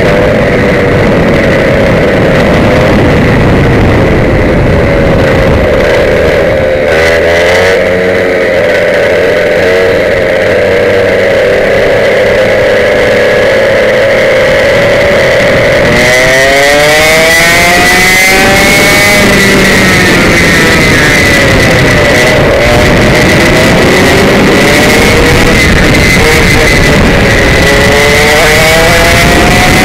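Komet K77 100cc two-stroke kart engine at racing revs, heard on board: it holds a steady high note, sags about a quarter of the way in, then climbs again in repeated rising sweeps from about halfway through as the kart accelerates out of corners.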